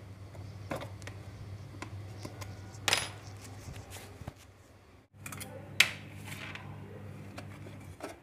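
Screws being undone with a screwdriver and taken out of a metal ECM case: scattered sharp metallic clicks and short scrapes, the loudest click about six seconds in. A steady low hum runs underneath.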